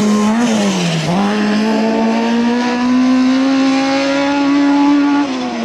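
1600-class autocross buggy engine running at high revs as the buggies pass. The revs dip briefly about a second in, then hold and climb slowly before falling away near the end.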